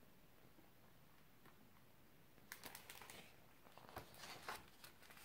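Near silence, then from about two and a half seconds in, faint scattered rustles and taps of a picture book being handled and opened.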